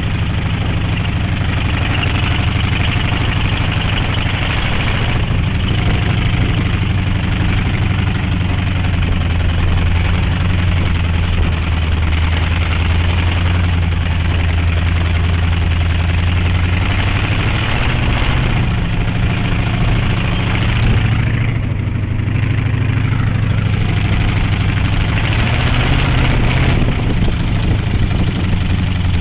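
A 1969 Chevy C-10 derby truck's engine running steadily as the truck is driven. Its note shifts a few times and eases off briefly about three-quarters of the way through.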